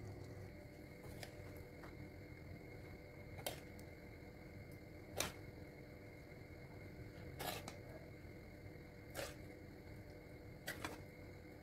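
Faint, sparse clicks and taps, about six spread over the stretch, of a metal spoon touching a ceramic plate as curry is served, over a faint steady hum.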